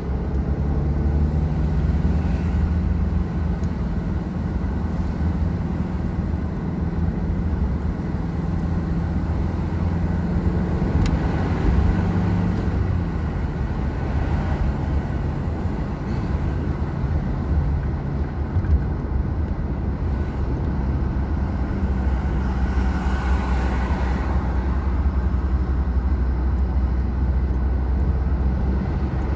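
Car engine hum and road noise heard from inside the cabin while driving. The engine note rises as the car pulls away, then drops in pitch partway through.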